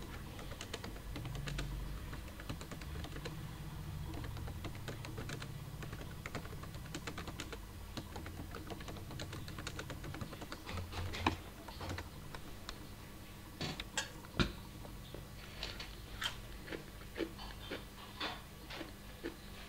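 Typing on a computer keyboard: rapid, irregular keystroke clicks, sparser and sharper in the second half, over a low steady hum.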